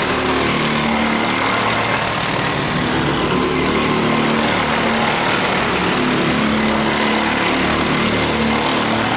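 Several rental go-kart engines running as the karts race round the track, their note shifting up and down in pitch as the drivers accelerate and ease off.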